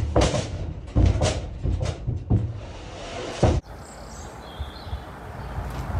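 Heavy square timber beams being slid and dropped onto a box lorry's load floor: a run of heavy wooden knocks and scrapes that stops about three and a half seconds in, followed by a quieter steady background noise.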